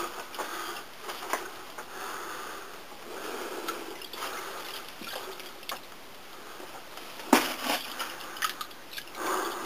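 Close, heavy breathing, with scattered footsteps, clicks and knocks as someone steps carefully across a plank over water in a mine tunnel; a sharper knock comes about seven seconds in.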